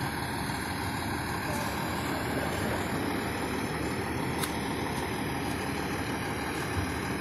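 Fire engine idling with a steady, dense rumble.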